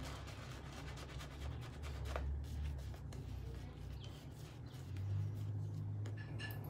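Shaving brush face-lathering soap on a wet, lathered face: rapid scratchy strokes of the bristles swirling through the lather.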